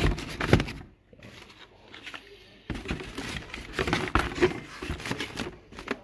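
A cardboard box and its packing being handled: rustling, scraping and light knocks. There is a quieter pause of a couple of seconds after the first second, then the rustling starts again.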